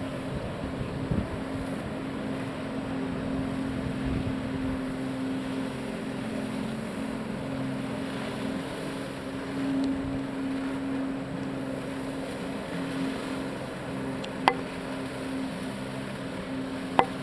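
Engine of a water jetpack's floating pump unit running steadily, forcing water up the hose to the jets that hold the flyer aloft: a steady drone with a humming tone. Two sharp clicks near the end, about two and a half seconds apart.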